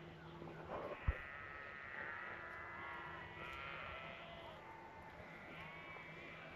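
A flock of sheep bleating faintly in the distance, many overlapping wavering calls. A single sharp knock comes about a second in.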